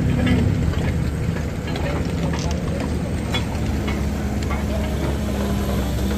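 Heavy truck's diesel engine idling steadily, with a few short clicks and knocks over it.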